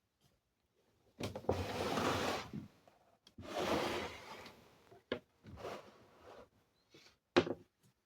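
Handling noises: two scraping, rustling stretches of about a second and a half each, then a few sharp knocks. No motor is running.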